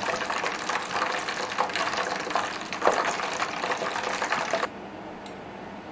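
Cooking oil heating in a pot on an induction (IH) cooker while it preheats to 160°C for deep-frying, giving a dense, fast crackling. About four and a half seconds in the crackling cuts off suddenly, leaving a quieter steady hum.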